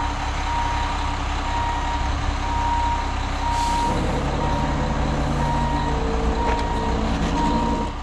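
Ready-mix concrete truck backing up, its diesel engine running under a reverse alarm that beeps about once a second. A short hiss of air comes about three and a half seconds in, and the engine's note shifts a moment later.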